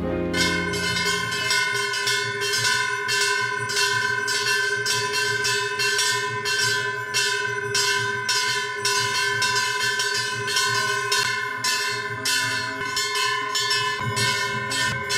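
Temple bells rung rhythmically for aarti, about three strikes a second, their steady ringing tones sustaining between strikes.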